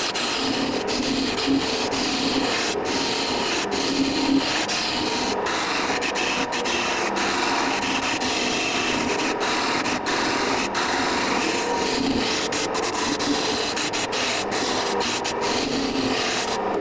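Turning chisel cutting a spinning wooden spindle on a wood lathe: a continuous hissing scrape as shavings peel off the wood, with a steady hum from the running lathe underneath.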